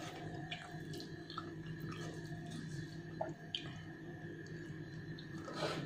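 Eating rice and beef rendang by hand: faint wet squishes and small clicks as fingers press the food together on a steel plate, along with chewing, over a steady low hum.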